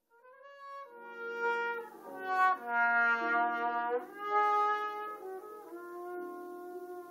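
Trumpet playing a solo line of held notes, building to its loudest phrases in the middle and easing into softer sustained notes in the second half.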